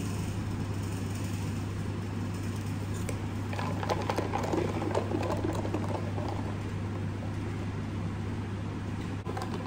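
Steady low hum of indoor room noise. About three and a half seconds in comes a short stretch of small knocks and handling noise as an insulated tumbler is picked up to drink from.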